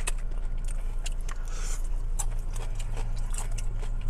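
A person chewing and eating food, with many small irregular clicks and smacks from mouth and hands, over a steady low hum.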